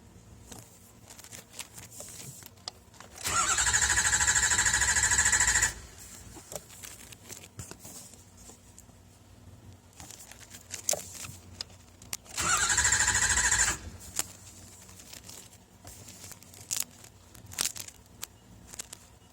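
Starter motor cranking a 6.0 diesel engine twice, about two and a half seconds and then about a second and a half, each time spinning up with a rising whine. The engine never fires: a no-clatter, no-start condition. Faint clicks come between the two tries.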